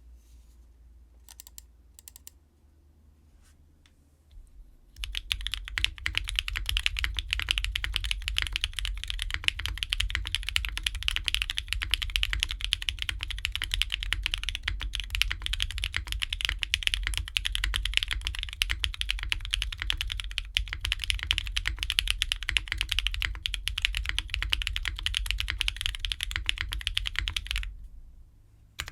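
Fast, continuous typing on an O-ring-mounted custom mechanical keyboard with lubed Kailh stemmed MX Black linear switches, a polypropylene plate and GMK keycaps. A few faint taps come first; the typing proper starts about five seconds in and stops shortly before the end, then briefly resumes.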